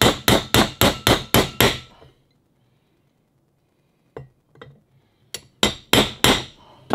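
Hammer tapping a socket used as a driver to seat a new shaft seal in a Sherwood raw water pump housing. A fast run of metal-on-metal taps, about three a second, stops about two seconds in. After a pause with a couple of light clicks, four more taps come near the end.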